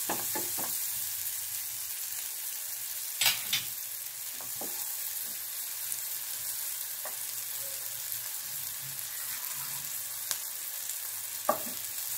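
Sliced onions and green chillies sizzling in oil in a kadai, a steady high hiss as they fry on toward golden. A wooden spatula scrapes and knocks against the pan now and then, most sharply twice about three seconds in and once near the end.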